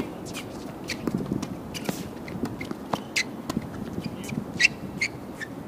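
Tennis shoes squeaking and scuffing on a hard court as players move during a rally, with a few sharp racket-on-ball hits; the loudest squeak comes about two-thirds of the way through.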